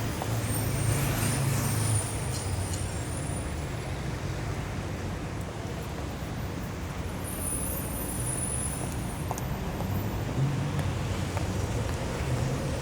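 Dense city street traffic: a steady mix of engine hum and tyre noise on asphalt, with a few faint high-pitched squeals in the first two seconds and again about halfway.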